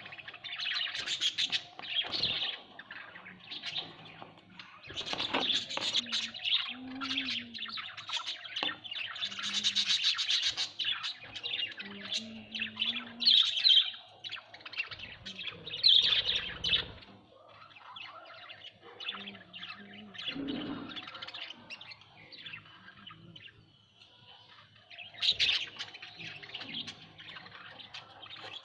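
Pet budgerigars chirping and chattering continuously in quick, high chirps, with louder bursts several times and a quieter stretch about two-thirds of the way through.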